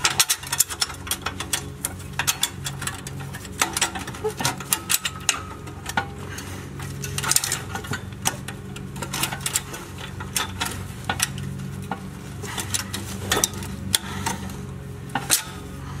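Stainless butt-joint exhaust band clamp being fitted over an exhaust pipe joint: irregular metallic clinks and rattles of the clamp's bolts and band against the pipe, over a steady low hum.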